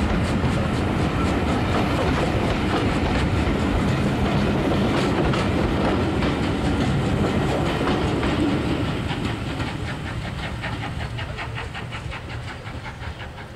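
Passenger coaches of a train rolling past on the rails, their wheels clicking over the rail joints in a rhythmic clickety-clack. The sound fades over the last few seconds as the train draws away.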